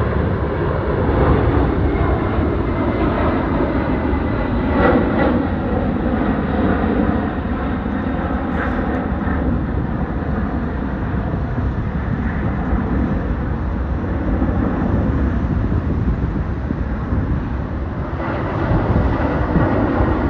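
Jet airliner engines running at high power as the aircraft takes off or climbs out: a steady, loud rush of jet noise with a deep rumble underneath.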